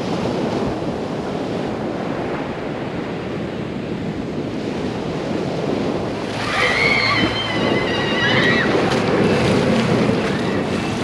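Gulf surf breaking and washing ashore, with wind buffeting the microphone. About six seconds in, a high wavering cry is held for about two seconds over the surf.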